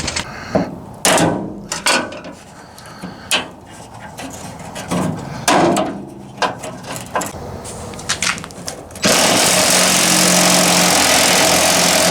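Scattered metallic clunks and scrapes as the tailgate handle and latch mechanism are worked apart. Then a power tool runs steadily for about three seconds near the end and cuts off suddenly.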